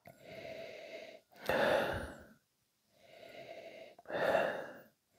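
A man breathing through his nose with a tulip whisky glass held to it, nosing the whisky: long quiet breaths alternate with two louder, shorter ones about one and a half and four seconds in.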